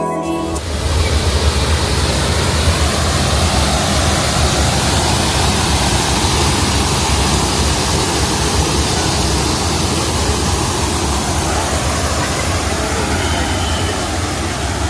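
Park fountain's water pouring down from two columns and splashing into its basin: a steady, loud rush with a deep rumble underneath. It begins about half a second in, as the background music cuts out.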